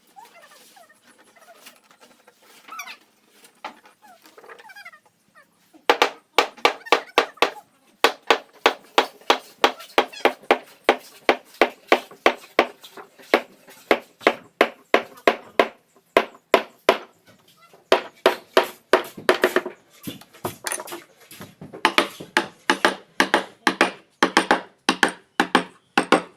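Rapid, steady blows of a hand tool striking wood, about three a second, starting about six seconds in with a few short pauses.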